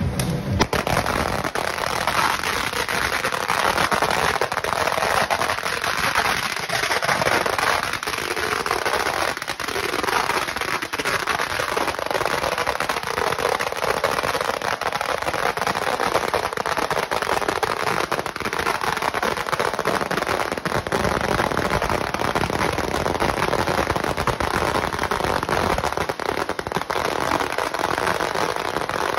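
A Zena 3000-shot 0.5-inch XL celebration cracker roll going off: a continuous, rapid rattle of firecracker bangs at a steady, loud level.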